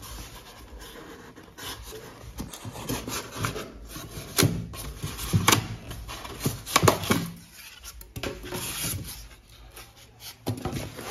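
A cardboard box and its packing being handled and opened by hand: irregular rubbing and scraping, with several sharp cracks and snaps about halfway through. Near the end a polystyrene packing insert is rubbed as it is pulled out.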